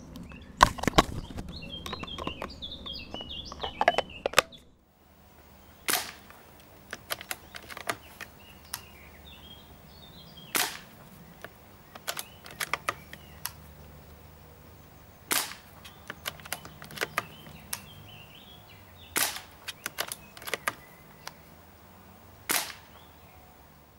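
A string of shots from a Hämmerli (Umarex) 850 AirMagnum CO2-powered .177 air rifle, each a short sharp crack, several seconds apart, with lighter clicks between the shots.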